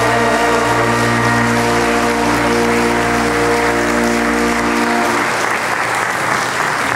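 A congregation applauding over the accompaniment's held closing chord of a gospel song. The chord cuts off about five seconds in and the clapping carries on.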